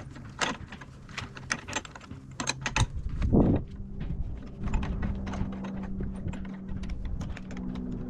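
Rapid, irregular clicks and knocks of a wood lathe's steel steady rest being handled and tightened, its roller wheels being set against the turned piece, with one louder thump about three seconds in.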